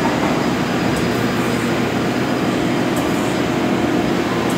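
Chevalier FSG-2440TX surface grinder running its automatic cycle, the grinding wheel spinning while the table traverses back and forth, making a steady mechanical noise.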